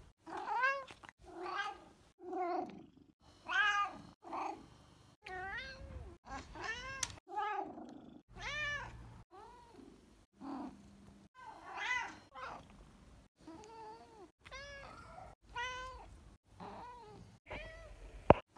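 Exotic Shorthair cat giving a long string of short meows, each rising then falling in pitch, one or two a second. A sharp click near the end.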